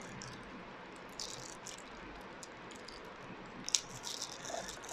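A small product box being opened by hand: faint rustling and light clicks of packaging, with one sharper click a little under four seconds in.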